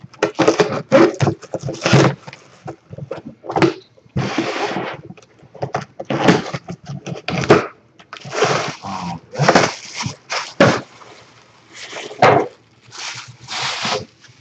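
A cardboard shipping box being opened by hand: cardboard and packing paper torn and rustled in a string of irregular rips and scrapes, some short, some about a second long.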